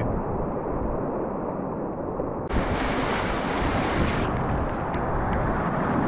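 Fast river current and whitewater rapids rushing around a packraft, with wind buffeting the microphone. About two and a half seconds in the rush turns brighter and hissier.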